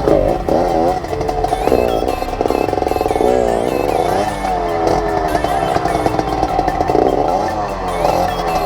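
Off-road trail motorcycle engines revving hard, their pitch repeatedly rising and falling.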